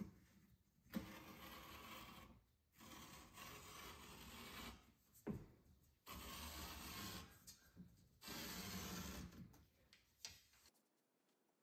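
Utility knife slicing through thin carpet along a metal straightedge: about four long cutting strokes of a second or two each, with short pauses between. A sharp knock comes about a second in.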